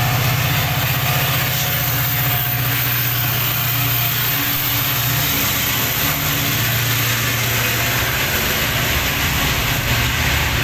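EMD diesel locomotives' two-stroke engines pulling a fully loaded freight train away under load, a steady low engine drone at close range, with the loaded open wagons rolling past on the rails as the train goes by.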